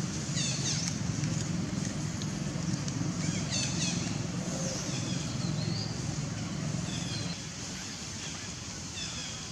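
A low, steady engine hum from a motor vehicle running nearby, which drops away about seven seconds in, with birds chirping in quick falling phrases over it.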